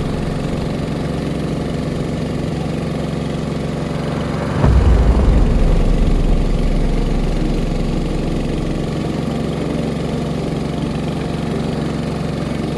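Boat engine idling steadily. A knock about a third of the way in is followed by a louder low rumble that eases off over a couple of seconds.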